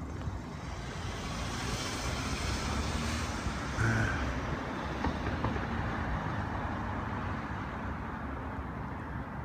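Steady outdoor street traffic noise, swelling slightly around three to four seconds in, with a brief high squeak near the four-second mark.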